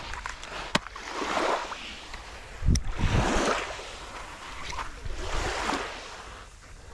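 Small sea waves washing and splashing against a rocky shore, swelling about every two seconds, with a low thump about three seconds in and a sharp click near the start.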